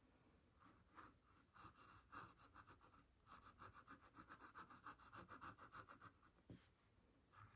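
Pen nib scratching on sketchbook paper in quick short strokes while inking small flower line art. It is faint, sparse at first, then a dense run of rapid strokes in the middle that tapers off near the end.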